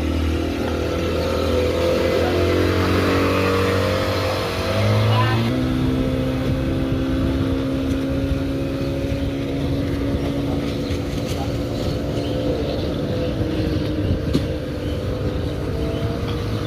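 Wooden speedboat's outboard engine running loudly, rising in pitch about five seconds in as it revs up, then holding a steady note.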